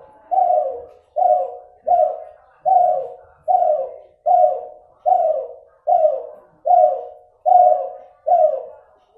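Kelantan-cross derkuku (spotted dove) cooing in a fast, even series of short notes, each sliding slightly down in pitch, about one every second or a little quicker. Its breeder finds this bird's voice still nasal.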